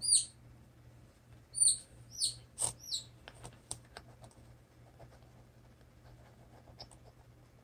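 Bantam chicks peeping, a few high, falling peeps in the first three seconds. Then only faint taps and clicks over a low steady hum.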